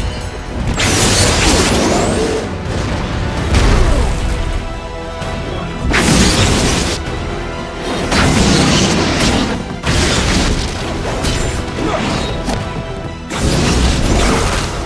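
Animated action soundtrack: a string of heavy blasts and crashes, one every two seconds or so, over dramatic music.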